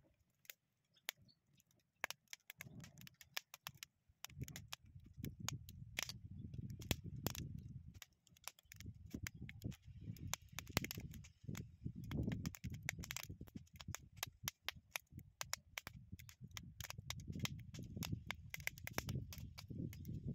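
Fire crackling with many sharp pops as zinc scrap from old batteries is burned off in a pot over a barrel fire. From about four seconds in, a low rumble swells and fades every second or two beneath the crackling.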